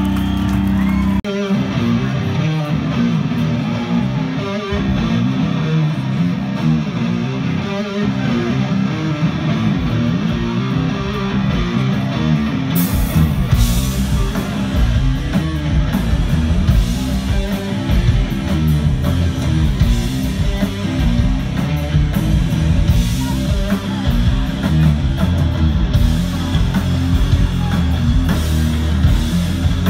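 Live heavy rock band with loud distorted electric guitar riffing; about 13 seconds in, crashing cymbals and drums come in with the full band.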